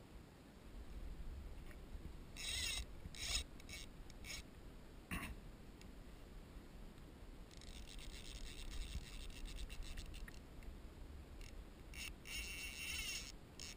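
Fishing reel's click ratchet buzzing in rapid clicks as line runs while a hooked fish is played on a bent fly rod. It comes in short bursts, with a longer run of about three seconds in the middle, and a single knock about five seconds in, over low wind and water rumble.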